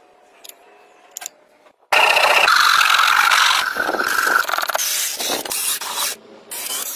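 Workshop tool noise from a build, sped up many times over: faint ticks, then a loud, harsh noise that starts suddenly about two seconds in and breaks up near the end.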